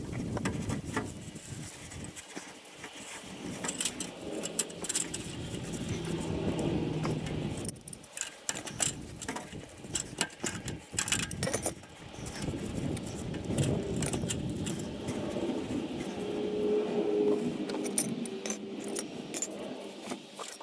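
Irregular light metallic clinks and scrapes as a thin metal sheet patch is worked around an exhaust pipe joint with pliers, over the rustle of gloved hands rubbing on the pipe.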